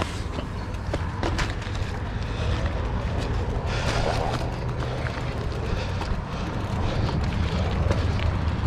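Steady low rumble of wind on the camera microphone, with scattered clicks and knocks and a short burst of hiss about four seconds in.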